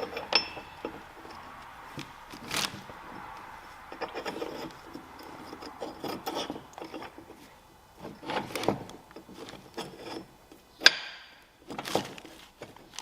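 Metal control-linkage parts (links, pin and bushing) being handled and fitted together by hand: scattered clinks, short scrapes and rubbing, with the sharpest knock about eleven seconds in.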